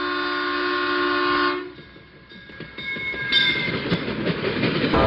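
Freight locomotive air horn sounding a long steady chord that cuts off about a second and a half in. The rumble of a train rolling by then builds steadily and grows loud near the end.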